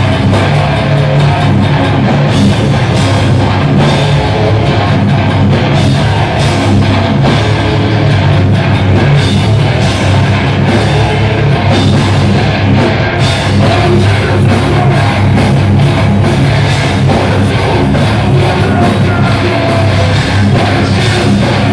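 Hardcore metal band playing live: two electric guitars, bass guitar and drum kit, loud and dense without a break.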